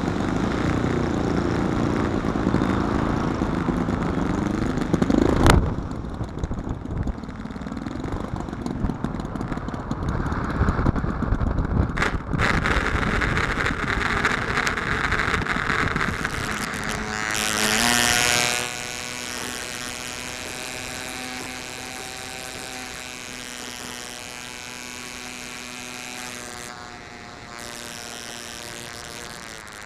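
Wind rush and engine noise on board a 75%-scale RC Piper Cub as it lands. There is a sharp thump about five seconds in as the wheels touch down, then rolling noise with another knock near twelve seconds. About two-thirds of the way through this gives way to a steadier, quieter buzzing model-aircraft engine.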